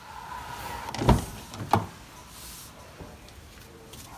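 Mazda 2 driver's door opened by its outside handle: two sharp clunks of the handle and latch about half a second apart, after a faint steady tone in the first second.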